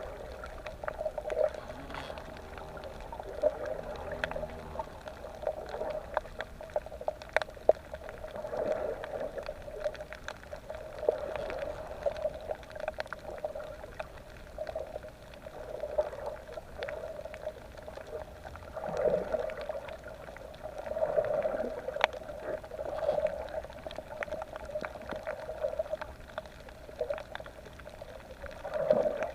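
Underwater sound of a reef dive: muffled water gurgling and bubbling that swells and fades every few seconds, with scattered sharp clicks.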